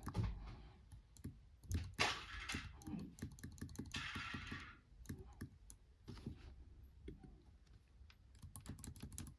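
Laptop keys tapped repeatedly on a MacBook Air keyboard: light, quick clicks, with a fast run of presses near the end. Two short soft hissing rustles come about two and four seconds in.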